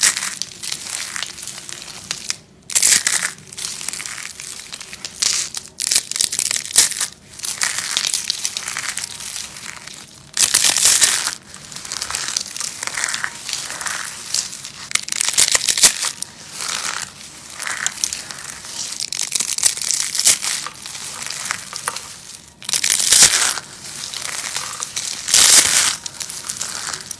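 Soap being crushed and crumbled: crisp crunching in irregular bursts of about a second each, a few of them much louder than the rest.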